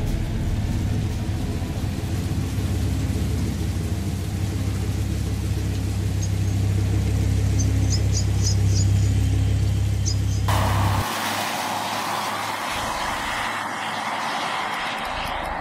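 Car driving on the road, with a steady low rumble of engine and tyres. About ten seconds in, the sound changes abruptly to a higher hiss.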